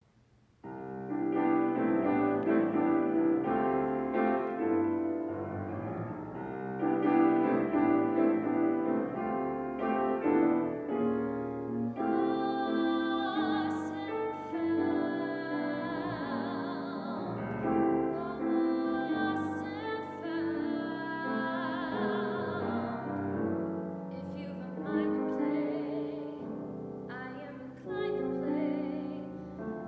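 A woman singing a Broadway show tune, accompanied by a Kawai grand piano. The piano plays alone at first, and the voice, with a wide vibrato on held notes, comes in about twelve seconds in.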